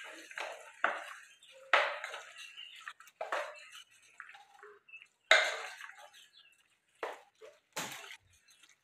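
A spoon stirring githeri, boiled maize and beans, in a metal cooking pot: irregular scrapes and knocks of the spoon against the pot, with the beans shifting. The sharpest knocks come about two seconds and about five seconds in.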